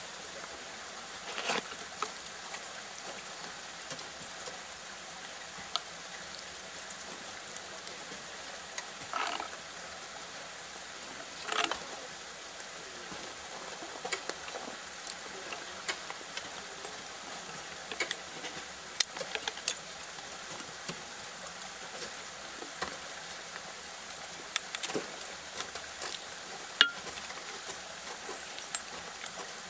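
Ice tools and crampons striking a frozen ice wall: scattered sharp knocks and a few short crunching bursts over a steady hiss.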